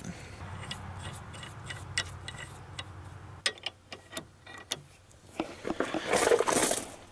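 Ratchet wrench clicking in short, irregular runs as it turns the forcing screw of a ball joint separator to press out a lower ball joint, with a louder rasping stretch near the end.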